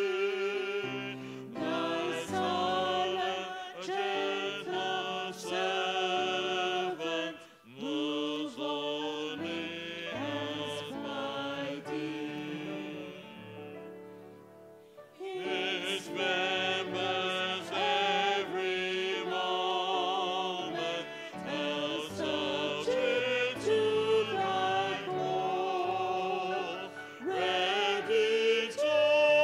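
A hymn being sung, led by two women singing into microphones, their voices held on long notes with vibrato. About halfway through, the singing dies away into a brief pause between verses, then the next verse begins.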